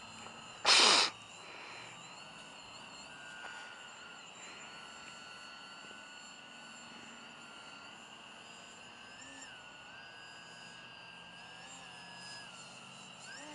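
Faint whine of a distant RC foam delta wing's electric motor, its pitch rising and falling with the throttle, over a steady chorus of night insects. About a second in, a short loud rushing burst stands out above everything else.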